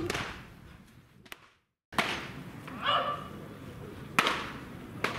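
Sharp pops of pitched baseballs smacking into catchers' mitts during bullpen practice, the two clearest about a second apart near the end. A brief shout comes about three seconds in.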